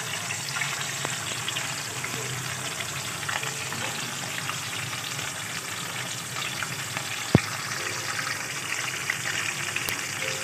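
Whole fish frying in hot oil in a pan, a steady sizzle with dense small crackles. A single sharp click stands out about seven seconds in.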